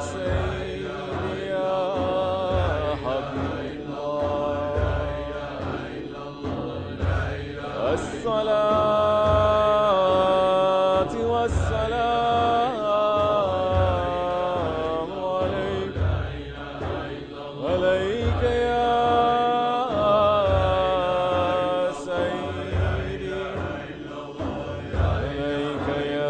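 Voices chanting salawat, the Arabic blessings on the Prophet, as a melodic Sufi recitation with long held notes.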